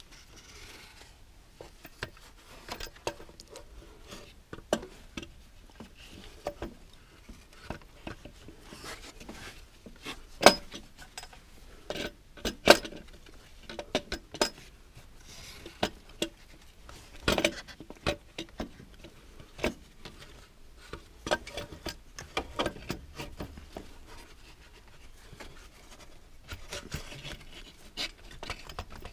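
Hand tools and metal parts clinking, tapping and knocking at an irregular pace during the water pump job, with a few sharper knocks about ten, thirteen and seventeen seconds in.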